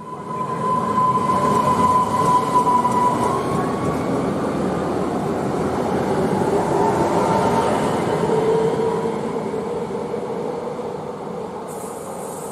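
Newag Impuls electric multiple unit pulling away from the platform. Its running rumble carries a whine that climbs in pitch as it gathers speed, then fades as the train draws away.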